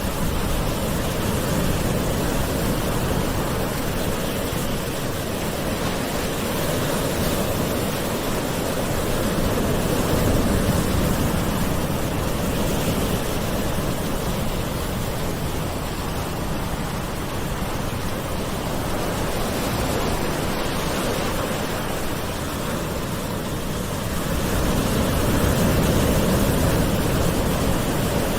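Gentle sea waves washing onto the shore in a steady, continuous wash, swelling slightly about ten seconds in and again near the end.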